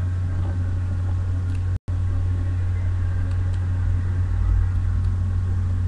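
A steady low hum that cuts out completely for an instant about two seconds in, with a few faint clicks over it.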